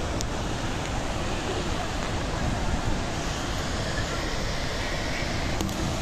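Steady rush of a large waterfall in full flow, heard close to the drop, with a strong low rumble beneath it.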